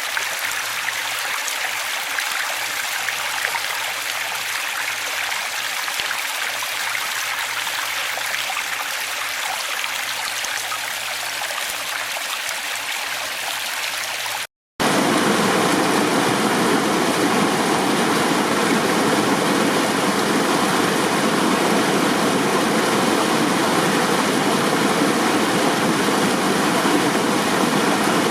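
Running water rushing steadily, a thin, hissy flow at first. About halfway through it cuts out for a split second, then returns as a louder, fuller rush with more depth.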